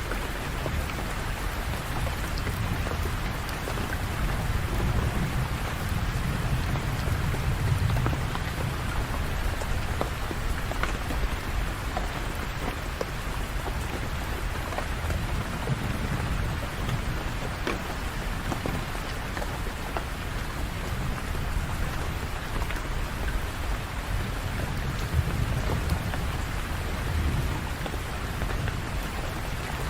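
Steady rain falling on hard surfaces, with scattered individual drops and slow, low rumbles of distant thunder rolling in and out several times.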